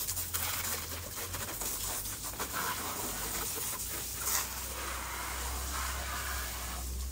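Water from a garden hose spraying and splashing onto a quad bike's tyres and bodywork and the wet concrete around it, a hiss that rises and falls as the jet moves.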